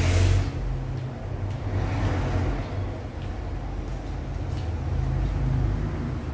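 A steady low mechanical hum, with a few light clicks and a brief rustle about two seconds in as parts are handled.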